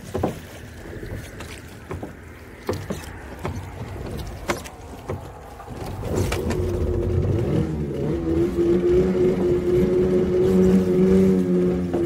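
A small fishing boat's outboard motor. For the first half there are scattered knocks and clatter over a low engine rumble. About halfway the motor is throttled up and then runs as a steady, louder drone.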